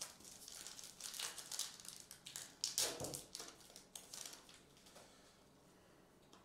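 Foil trading-card pack wrapper crinkling in short crackles as it is torn open and the cards are pulled out, fading off after about four and a half seconds.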